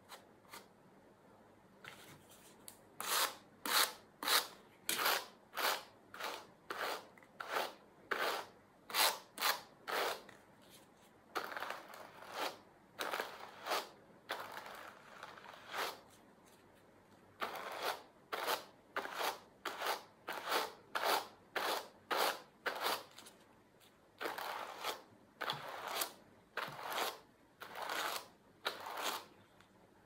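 A pair of wire-toothed hand carders brushing cotton fibres, each pass of the top card making a short scratchy brushing stroke. The strokes come at one to two a second, beginning about two seconds in, in several runs separated by brief pauses.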